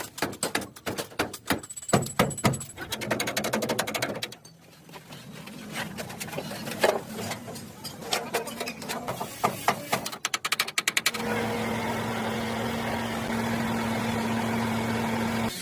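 Truck body repair work: rapid, irregular knocking and tapping, then sparser knocks. About eleven seconds in, a steady machine hum with a low tone starts and runs until just before the end.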